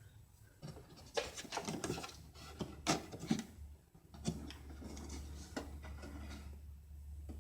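Scattered light clicks and rubbing of small metal hardware being handled on a bench, then a faint low steady hum from about four seconds in.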